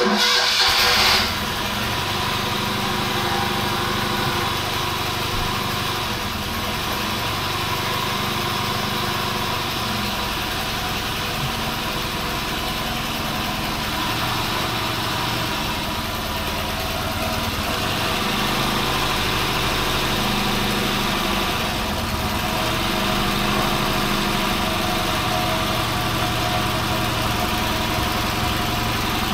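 Fiat 126p BIS's water-cooled two-cylinder engine running steadily, firing on both cylinders after a valve-clearance adjustment; it is louder and harsher for the first second or so.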